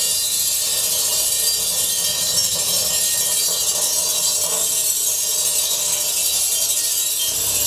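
Orbeez water beads jumping and skittering on a hot steel plate over a gas flame, making a steady, dense sizzling rattle as they ride on their own steam (the Leidenfrost effect).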